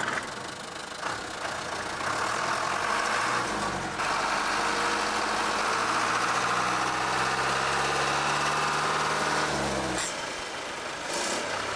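A car engine heard from inside the cabin, with road noise from tyres on a wet road. About three and a half seconds in the engine picks up speed, runs steadily, then eases off near the end.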